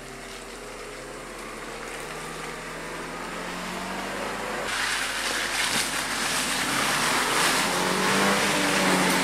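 A Land Rover Defender 90 P300's 2.0-litre turbocharged four-cylinder petrol engine accelerating, its pitch slowly rising as it gets louder. About halfway in, a loud rush of tyre and road noise joins it and keeps building.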